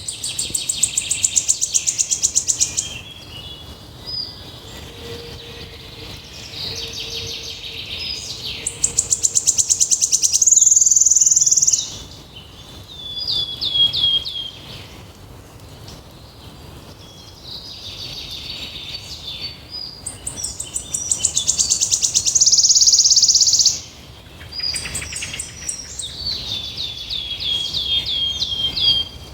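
A songbird singing: fast, high trills in phrases of one to three seconds, repeated several times, with strings of short falling notes between them.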